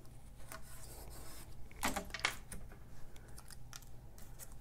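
Hands handling paper die-cuts on a craft mat: rustling and scraping paper with small taps and clicks, loudest in a short crinkly burst about two seconds in, over a low steady hum.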